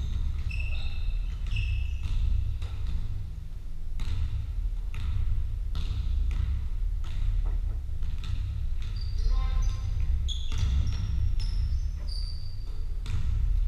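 Basketball bouncing on a wooden sports-hall floor during play: irregular thuds that echo around the large hall, mixed with short high squeaks of trainers on the boards.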